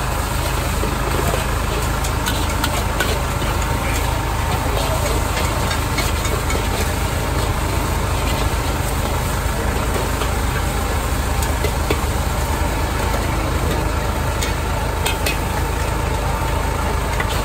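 Wok burner running with a steady low roar under a large wok. A metal spatula scrapes and clicks against the wok now and then as noodles are stir-fried.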